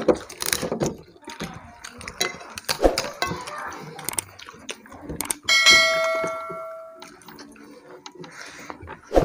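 Small eating noises: crisp crackles and clicks of hands working food on plates. About five and a half seconds in comes a single bright bell-like ding that rings and fades over about a second and a half, the notification-bell sound effect of a subscribe-button overlay.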